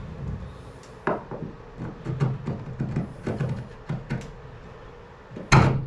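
Light knocks and clunks of wood and tools being handled, irregular, with a louder knock near the end.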